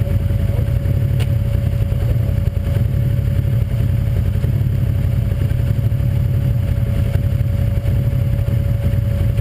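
Side-by-side UTV's V-twin engine idling steadily while the machine sits still, with a faint steady whine above it and a single light click about a second in.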